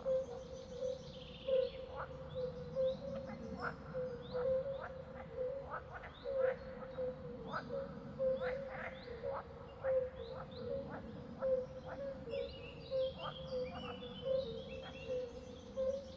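Swamp chorus of frogs calling over and over in short, same-pitched notes, with quick chirps among them and birds singing higher trills. The birdsong grows busier near the end.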